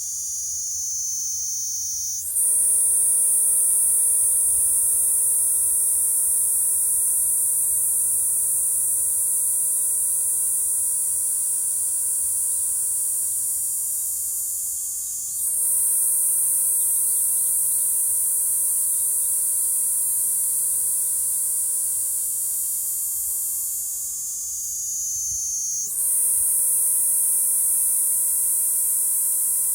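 Kaempfer cicada (niinii-zemi) singing: a continuous, shrill, high buzzing trill. It sags in loudness and pitch, then starts a fresh phrase abruptly about two seconds in, again around fifteen seconds, and near the end.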